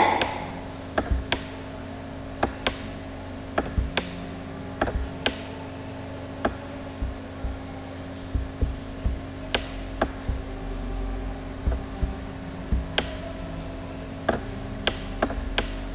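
Light, sharp taps and clicks of a stylus on a writing tablet as digits are handwritten, coming irregularly about once or twice a second, over a steady low electrical hum.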